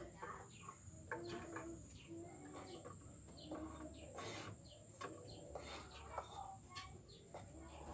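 A kitchen knife tapping and scraping on a cutting board in an irregular series of short clicks, with faint clucking calls in the background.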